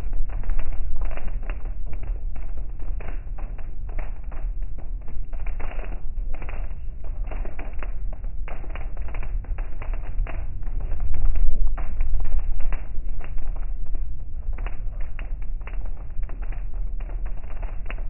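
Heavy rain drumming on a car's roof and windshield, heard from inside the cabin as a dense, irregular patter of taps over the low rumble of the moving car.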